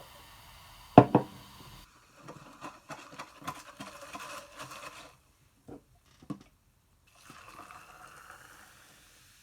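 Two sharp knocks about a second in, then Coca-Cola being poured into a cup, crackling and fizzing for a few seconds. A couple of clicks and a softer fizzing hiss follow near the end.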